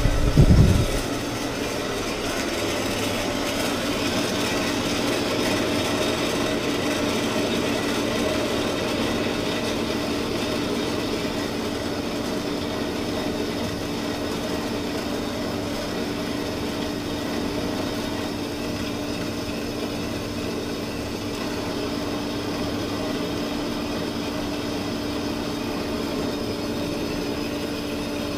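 Horizontal metal-cutting band saw running steadily, its blade cutting through 2-inch square tubing with a 3/16-inch wall: a steady hum at a constant pitch. A couple of low thumps sound right at the start.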